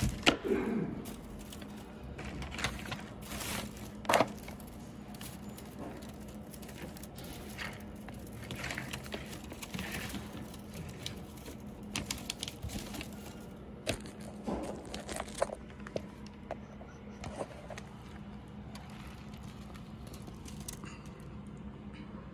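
A bundle of enamelled copper magnet wire being handled: scattered rustles and light clicks of the wire strands, sharpest in the first few seconds, over a steady low hum.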